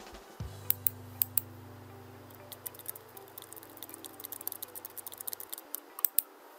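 Computer keyboard typing a run of quick keystrokes while a card number and expiry are entered, with pairs of mouse-button clicks about a second in and near the end. A low steady hum starts with a thump about half a second in and stops about five and a half seconds in.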